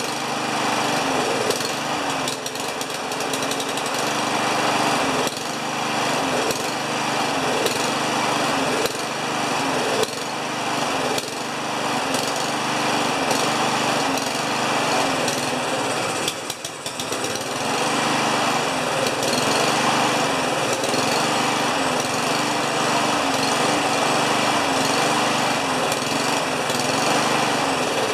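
Honda lawn mower engine running on gasoline squirted by hand into the carburetor, its speed surging up and down in waves; about two-thirds through it nearly dies, then picks up again. It keeps going only on the hand-fed fuel because the carburetor is probably clogged.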